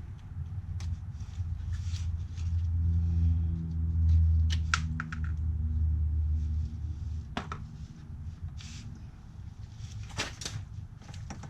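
A low engine-like rumble fades out about seven seconds in. Over it come scattered sharp metallic clicks and knocks, with a cluster near the end.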